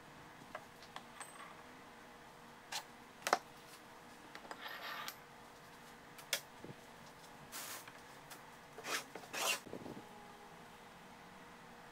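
Square steel tubing being handled on a steel plate with magnetic welding squares: scattered light metallic knocks, clicks and brief scrapes, the loudest knock about three seconds in, over a faint steady hum.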